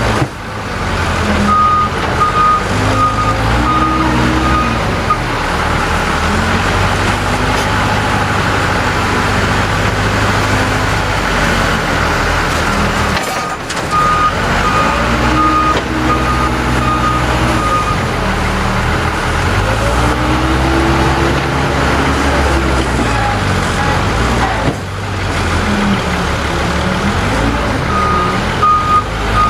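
Case 580L backhoe's diesel engine running and revving up and down as the loader works, with a reverse alarm beeping about twice a second in three spells: a few seconds in, around the middle, and near the end.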